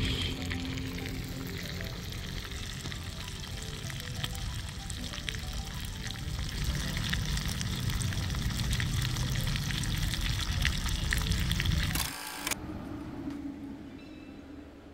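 Fish frying, a steady sizzle thick with tiny crackles and pops. The sizzle cuts off sharply about twelve seconds in, leaving much quieter sound.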